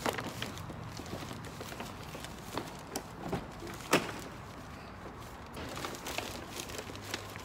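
Handling noise as a shopping bag is loaded into a car and someone climbs into the seat: rustling and a few knocks, the sharpest about four seconds in, over a steady low hum.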